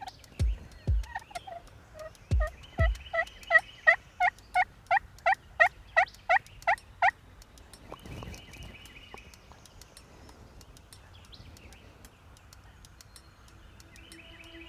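A run of about fifteen turkey yelps, evenly spaced at about three a second, each note dropping sharply in pitch. The yelps are loudest in the middle and stop about seven seconds in. A few low thumps come in the first three seconds.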